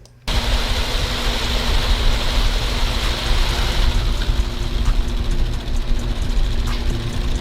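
Loud, steady rumble and hiss of a running vehicle with a faint steady hum, starting suddenly just after the start.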